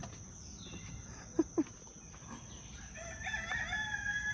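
Rooster crowing once near the end, a long call held at a steady pitch, after two short clucks about a second and a half in. A steady high insect drone runs underneath.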